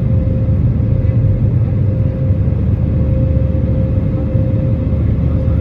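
Jet airliner engine and airflow noise heard from inside the passenger cabin while climbing after takeoff: a loud, steady low rumble with a constant mid-pitched hum running through it.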